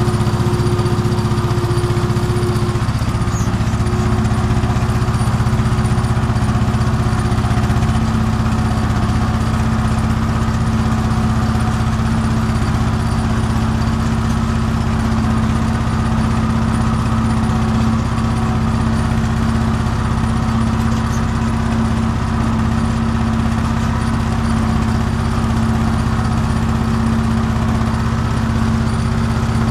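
Farm tractor's diesel engine running steadily under load while pulling a tine cultivator, heard from inside the cab.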